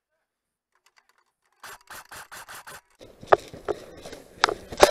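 Dead silence for about the first second and a half. Then airsoft guns firing: a quick faint string of about five shots a second, then single sharp snapping shots.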